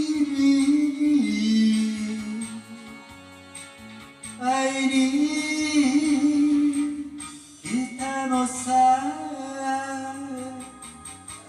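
Karaoke music with singing: a backing track under a voice holding long, slightly wavering notes.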